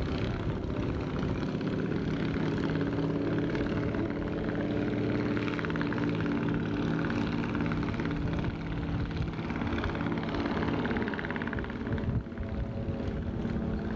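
An engine running steadily, a droning hum that holds one pitch, dipping briefly about twelve seconds in.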